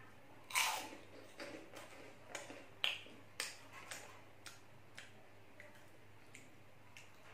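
Crunching and chewing of crisp puffed corn-stick snacks: irregular sharp crunches, the loudest in the first few seconds, thinning out to a few faint ones.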